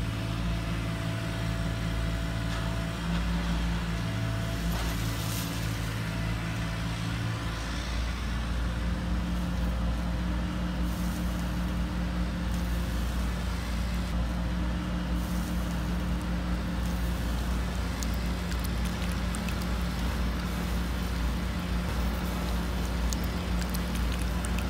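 Excavator engine running steadily with a low drone, its tone shifting about seven and a half seconds in.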